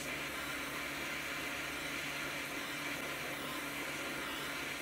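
Butane torch lighter hissing steadily as its flame melts the frayed ends of 550 paracord.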